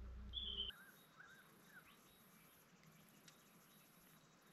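Faint bush ambience: a few short bird calls in the first two seconds over a steady, high insect buzz that drops out briefly now and then. A low rumble cuts off abruptly under a second in.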